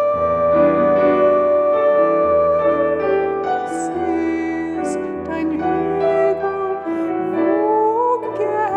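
Piano playing a slow accompaniment of held notes, with a soprano voice singing with vibrato over it in the last couple of seconds.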